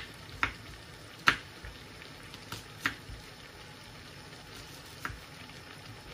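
Kitchen knife chopping spring onions on a wooden chopping board: about six sharp, unevenly spaced knocks of the blade striking the board, most of them in the first three seconds.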